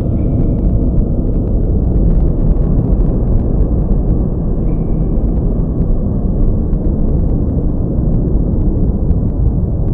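A steady, deep rumble with no clear rhythm, with a few faint, short high tones over it.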